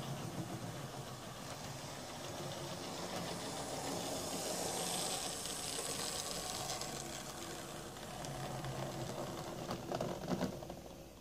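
Hornby OO gauge Class 121 DMU model running on track: a steady motor hum with wheels rattling and hissing along the rails. A few sharp clicks come near the end, and then the sound fades as the railcar comes to a stop at the platform.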